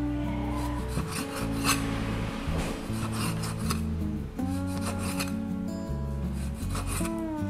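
Cleaver slicing raw pork loin into thin slices on a wooden chopping board: repeated rasping cuts through the meat, each ending in a light knock on the board, irregularly spaced, with a pause in the middle. Background music plays throughout.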